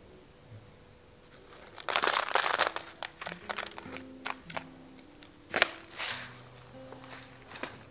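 Kraft paper bag crinkling and rustling as it is handled and folded, loudest about two seconds in, with scattered sharp crackles after. Soft background music with sustained low notes runs underneath.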